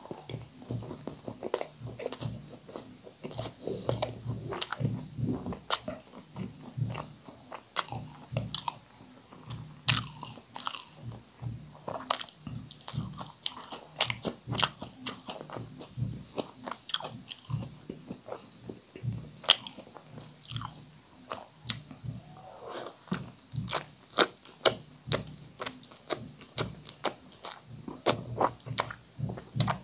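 Close-miked mouth sounds of a person eating spicy instant noodle soup: wet chewing with many sharp, irregular lip smacks and clicks, and noodles sucked in near the end.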